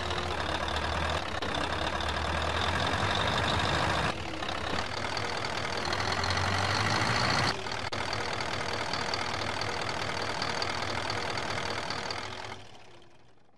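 Heavy truck's diesel engine running steadily, with abrupt changes in level about four and seven and a half seconds in. It fades out near the end.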